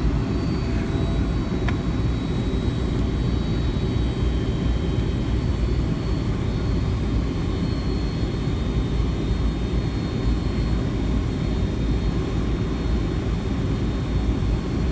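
Boeing 757-200's jet engines at taxi power, heard inside the cabin over the wing: a steady low rumble with a faint high whine above it.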